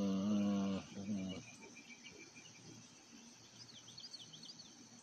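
Steady chirring of insects, with a few quick, falling bird chirps about three and a half seconds in. A person's voice gives two short hums at the very start.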